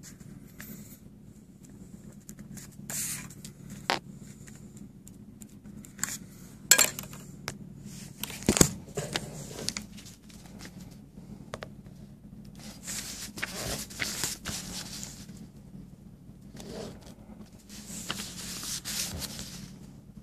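Handling noises of paper and a pen: scattered sharp clicks and knocks, then two longer stretches of scraping and rustling about 13 and 18 seconds in, over a low steady hum.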